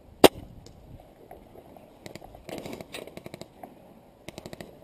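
Airsoft electric guns firing short full-auto bursts of rapid, clicking shots, about halfway through and again near the end. A single loud sharp crack comes just after the start.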